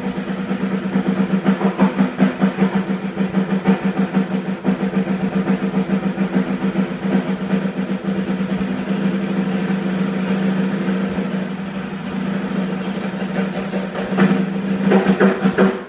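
Live band playing loudly: rapid, continuous drumming with snare rolls over a held low note, breaking off suddenly at the very end.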